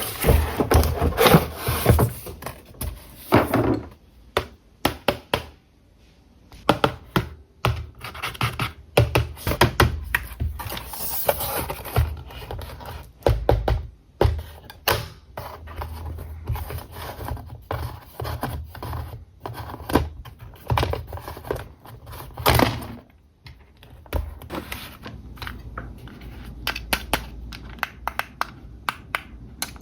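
Toy packaging being handled and opened by hand: an irregular run of knocks, taps and scratching.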